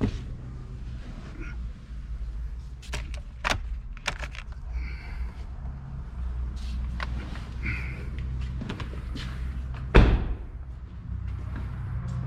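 Car handling sounds: scattered clicks and knocks over a steady low hum, with a car door shutting with a thud about ten seconds in.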